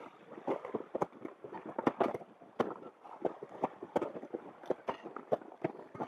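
Footsteps crunching on glacier ice as hikers walk: irregular sharp crunching steps, about two to three a second.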